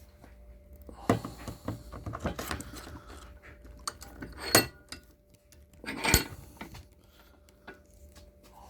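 Metal tools and chainsaw parts being handled: a run of irregular clinks and rattles, then two sharp metallic knocks about a second and a half apart.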